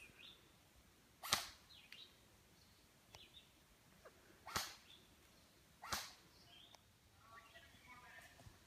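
Three sharp single shots from airsoft guns, about a second, three seconds and a second and a half apart, with faint distant voices near the end.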